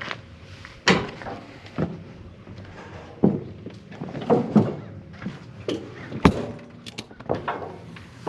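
A series of irregular knocks and clunks, about ten over the span, the loudest about six seconds in.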